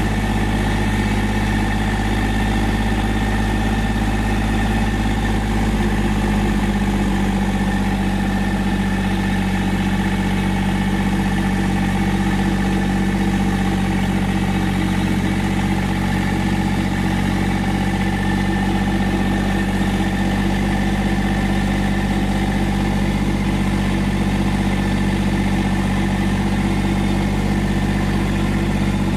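Tractor engine running steadily at a low, even speed, its pitch dropping slightly about six seconds in.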